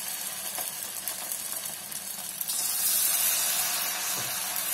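Batter-coated egg pieces deep-frying in hot oil in a steel pan, a steady sizzle that grows louder about two and a half seconds in.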